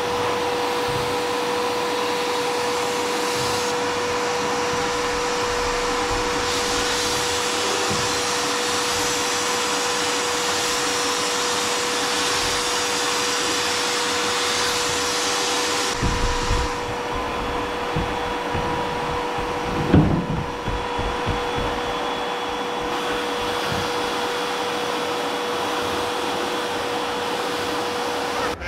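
Glass bead media blasting in a benchtop blast cabinet: the blast gun's compressed air hisses steadily, stronger and weaker in stretches as the gun is worked. Under it runs the steady hum of the vacuum motor drawing dust out to the dust collector, and a knock sounds about two-thirds of the way through.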